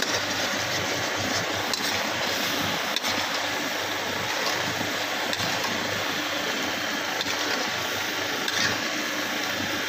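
Steady sizzling and bubbling of a tomato masala cooking down in oil in a karahi over high heat, stirred with a ladle.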